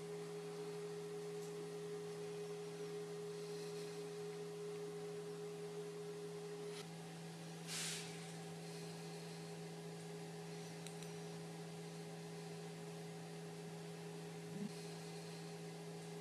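Steady low electrical hum over faint hiss. A second, higher steady tone stops about seven seconds in, and a brief soft rush of noise comes about a second later.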